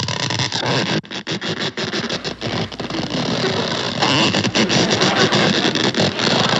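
Cartoon sound effect of an elephant snoring: a loud, continuous noise with a quick rattle in the first couple of seconds.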